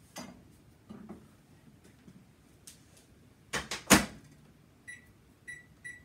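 Microwave oven: a few soft knocks as the plastic pressure cooker is set inside, then the door shut with a loud double bang a little past halfway. Near the end, three short keypad beeps as the cooking time is entered.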